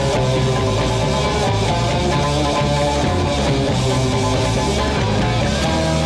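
Rock music with guitar, playing steadily at a loud level.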